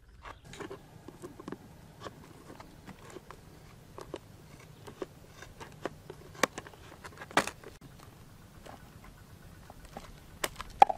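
Hand pruning shears snipping through a black plastic bucket: a series of irregular sharp snips and cracks as the blades bite through the plastic.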